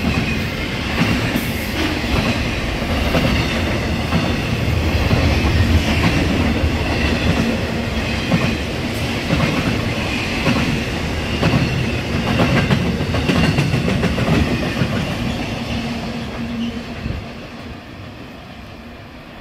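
Double-stack intermodal freight train's cars rolling past, the wheels clattering over rail joints with a thin high wheel squeal at times. The noise falls away near the end as the last car goes by.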